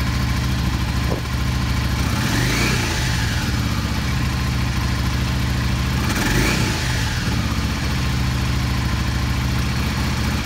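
Yamaha V Star 650's air-cooled V-twin idling on part choke, its throttle blipped twice, revving up and falling back to idle each time. The owner hears the first hint of a stumble just off idle, which he puts down to ethanol-gummed, partly plugged jets in the Mikuni carburetors.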